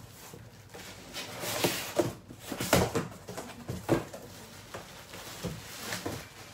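Cardboard boxes being handled and rummaged through: irregular rustling, scraping and knocking, the loudest knocks about two, three and four seconds in.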